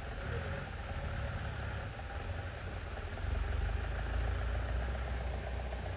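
Engines of Mahindra off-road jeeps running at low revs as they crawl up a rough trail, a steady low rumble that grows louder about three seconds in.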